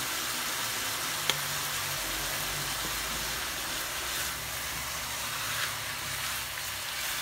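Chicken strips sizzling steadily as they fry in a hot nonstick frying pan, with one sharp click about a second in. From about four seconds in a spatula is worked through the pieces, adding faint stirring taps over the sizzle.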